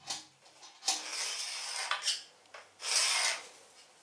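A line being marked onto a bare floor along the edge of a spirit level: scratchy rasping strokes, a long one about a second in and a shorter one near three seconds.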